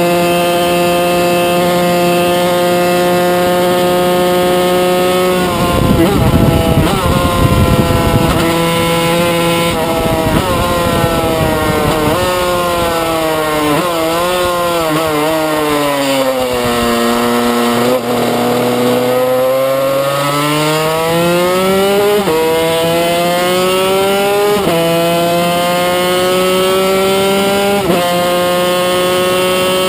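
Onboard a 1995 Yamaha TZ250 racing motorcycle, its two-stroke twin engine running at high revs. About ten seconds in it drops down through the gears in falling steps to its lowest pitch a little past halfway, then climbs back up through the gears in rising steps to high, steady revs. A rushing noise briefly covers the engine around six to eight seconds in.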